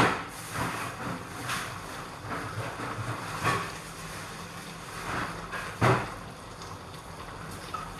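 Thick sweet-and-sour sauce with prawns bubbling in a wok on a gas burner, giving irregular pops and blurps, the loudest right at the start and about six seconds in, over a steady low hum.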